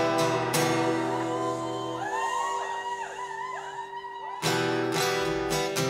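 A rock band playing live, led by strummed guitar chords. About two seconds in the strumming drops away under wavering held high notes, and full strumming comes back about four seconds in.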